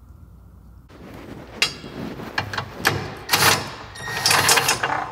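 Socket wrench on an extension working a subframe bolt on a Honda Civic Type R. From about a second in there are irregular metallic clicks, clinks and scrapes.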